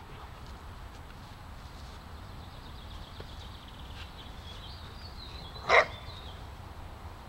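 A dog barks once, short and loud, a little over three-quarters of the way through, over a low steady background rumble.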